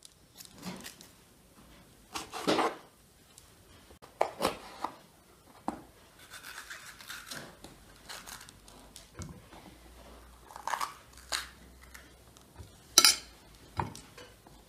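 Kitchen knife cutting bell peppers on a wooden cutting board: irregular cuts and taps of the blade on the board, with a sharper clack near the end as pieces are moved onto a plate.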